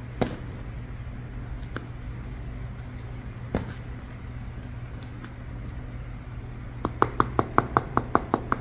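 Hands working potting mix around a geranium in a terracotta pot. A few soft clicks over a steady low hum, then near the end a quick run of light taps, about five a second.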